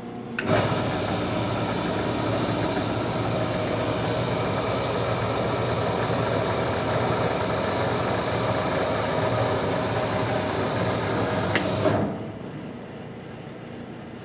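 Standard Modern 1660-C 17-inch lathe, driven by a 7.5 hp motor: the spindle engages with a jolt about half a second in and runs steadily with the chuck spinning. About twelve seconds in, with a click from the lever, the electric clutch brake stops it and only a quieter hum remains.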